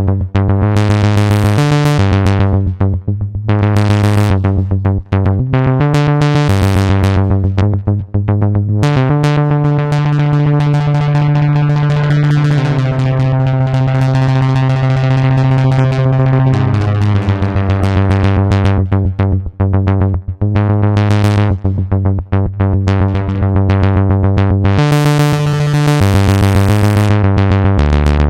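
Modal Cobalt 5S synthesizer playing a rhythmic sequence: a bass note and chords that change every couple of seconds under a fast repeating pulse, with bright high bursts now and then.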